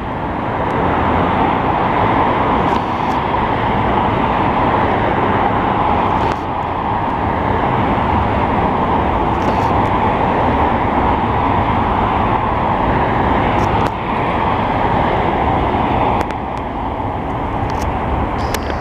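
Steady noise of cars passing on a highway, mixed with a CN freight train of double-stacked containers running by behind the highway wall.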